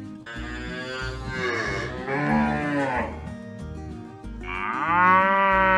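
Cows mooing: long drawn-out moos, the loudest one near the end, over background music.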